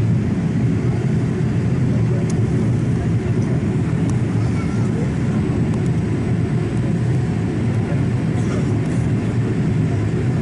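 Steady low rumble of a Boeing 787-8 airliner in flight, engine and airflow noise heard inside the cabin.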